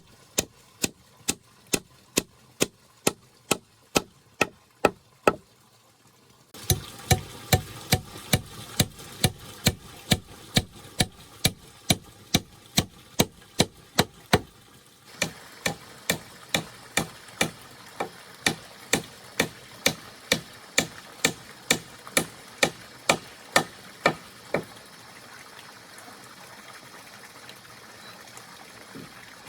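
Steady hand-tool blows on wood, about two a second, as in chopping or hammering timber; the blows stop near the end, leaving a steady faint background noise.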